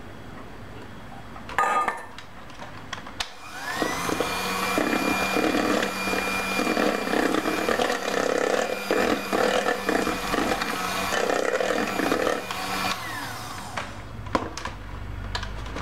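Electric hand mixer switched on about four seconds in, its motor whine rising to speed and running for about nine seconds as the beaters work flour into a wet banana batter, then winding down. A short thump comes before it starts, and a few light knocks follow after it stops.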